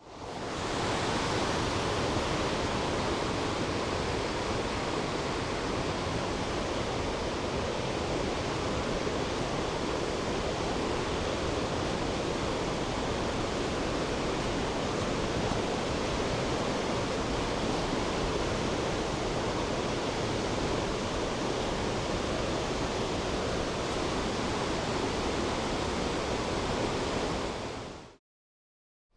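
Rushing water of a mountain stream, a steady even rush that fades in at the start and fades out near the end.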